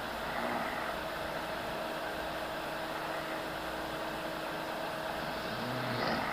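Snoring in sleep: one slow snoring breath about half a second in and another near the end, over a steady low hum.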